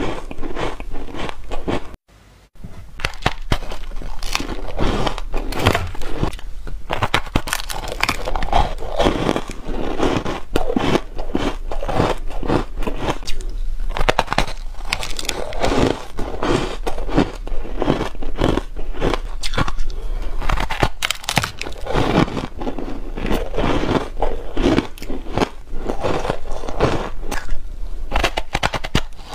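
Close-up biting and chewing of hard frosty ice blocks coated in powder, one coated in matcha: dense, continuous crunching and crackling, broken by a brief silent gap about two seconds in.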